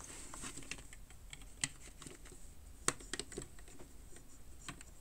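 Plastic clamp building bricks (a Wange set) clicking and tapping as they are handled and pressed together: a scatter of light clicks, two of them sharper about one and a half and three seconds in.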